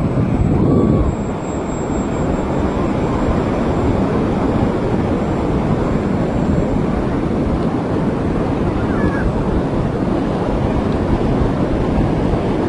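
Steady, loud rush of sea surf and wind on the microphone, with a faint high thin whine that fades out about seven seconds in.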